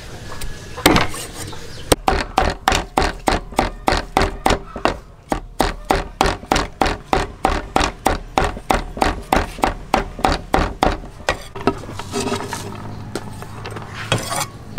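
Steel cleaver chopping garlic on a thick round wooden chopping board: one sharp knock about a second in, then rapid, even knocks about four a second. The chopping stops a few seconds before the end.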